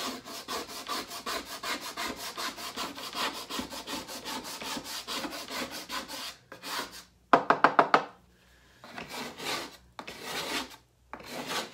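Plastic scraper scraping damp chalk paste off a chalkboard in quick back-and-forth strokes, about five a second. A little past halfway comes a short run of louder, squeaky strokes, then a brief pause before the scraping resumes.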